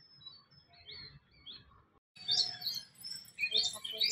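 Small birds chirping: a few faint, scattered high chirps at first, then about two seconds in a busier chorus of many quick chirps.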